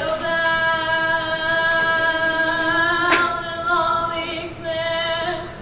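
A choir of young children singing a long held note for about three seconds, then two shorter held notes.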